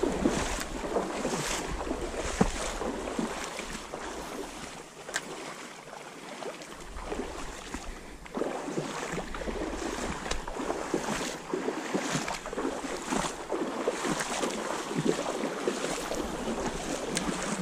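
Stream water sloshing and splashing around the legs of a person wading through a shallow trout stream, a surge with each step about once a second, with wind rumbling on the microphone.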